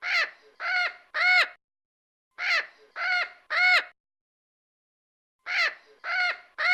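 Crow cawing in runs of three caws, three times over: one run at the start, one about two and a half seconds in, and one near the end. Each caw is short and rises then falls in pitch.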